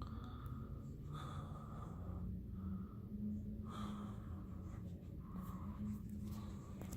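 Mayfair (Banvil) BF542-16-1L 42-inch ceiling fan running: a steady low motor hum with a scratchy swishing that swells and fades about once a second.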